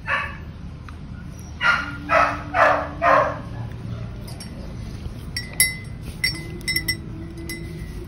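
Metal spoon clinking against a ceramic mug while a hot drink is stirred: a run of light, ringing clinks in the second half. About two seconds in, four short, loud animal calls come in quick succession.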